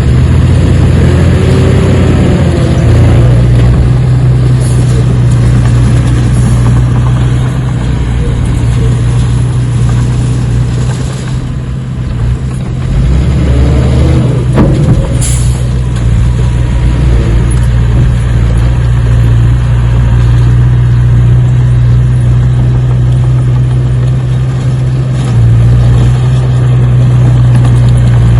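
Heavy engine running with a steady low drone, shifting a little in pitch a few times, with brief gliding tones over it about two seconds in and again around halfway.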